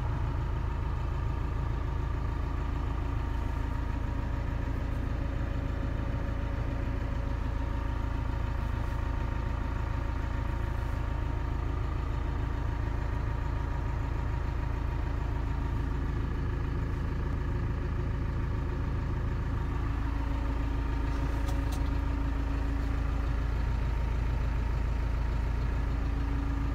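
Claas Axos 340 tractor's four-cylinder diesel engine idling steadily, heard from inside the cab. About 20 seconds in its hum deepens slightly and grows a little louder.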